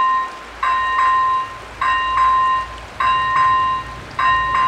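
Level-crossing warning bells of an AŽD 97 crossing ringing in a repeating double stroke about every 1.2 seconds, each stroke ringing on, the warning that the barriers are down and a train is due. A low rumble rises underneath from about half a second in.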